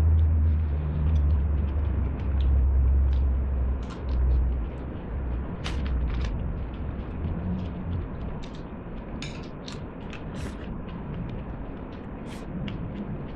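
Eating at a table: sharp clicks of a spoon and chopsticks against dishes, and paper tissue rustling, over a low rumble that is loud for the first few seconds and then fades.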